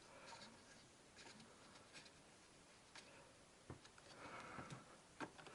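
Near silence with a few faint, scattered clicks and light handling noise, as small parts are moved about by hand.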